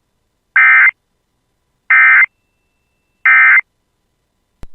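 Emergency Alert System SAME end-of-message signal: three short bursts of warbling digital data tones, about a second and a half apart, marking the end of the alert. A brief click follows near the end.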